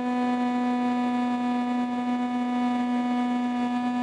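RC plane's motor and propeller running at a steady throttle in flight: a steady buzzing whine held at one unchanging pitch.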